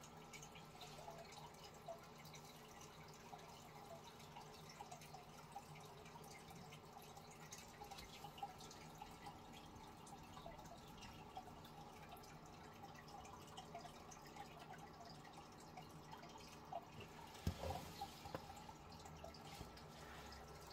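Near silence: faint room tone with scattered tiny ticks, and a brief cluster of soft knocks about three quarters of the way through.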